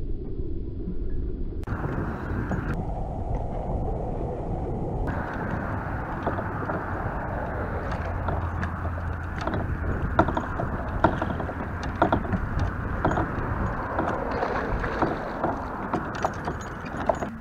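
Wind rumbling on the camera microphone, with scattered clicks and knocks from about six seconds in as a bass is fought and landed from a kayak.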